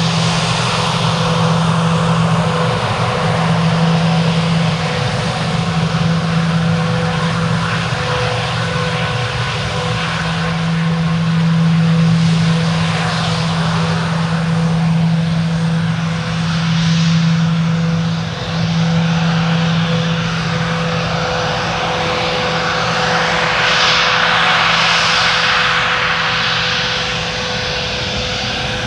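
Jet engines of a Bombardier Global 5000 business jet running steadily: a constant whine over a low hum with a broad rushing noise. The sound swells gently in loudness a few times, and the whine's pitch stays level with no spool-up to take-off power.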